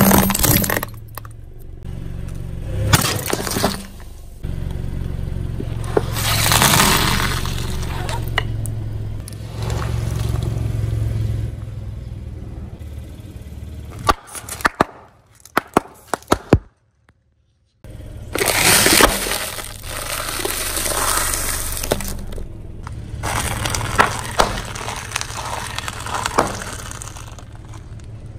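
A car tire rolling slowly over rows of objects, cracking and crunching brittle pieces and squashing sealed snack packets in repeated bouts of crackling and popping, over the car's steady low rumble.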